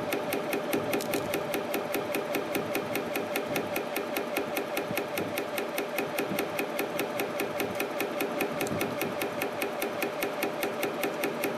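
YHM CF-310 CNC spring coiling machine running at production speed, coiling short compression springs from 0.35 mm wire. A steady, even clicking of about five strokes a second, one per spring, over a continuous machine hum.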